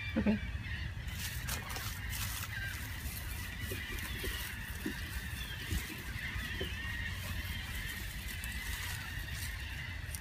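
Birds chirping and calling continuously over a low steady rumble, with a few faint knocks.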